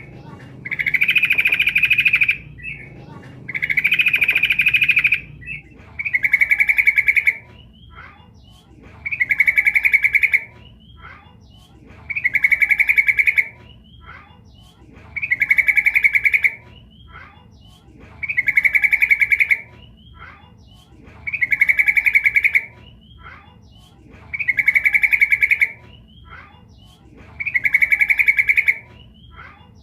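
Female yellow-vented bulbul (trucukan) calling to males, the call used as a lure: a short call phrase about a second long, repeated every three seconds or so, with faint chirps between.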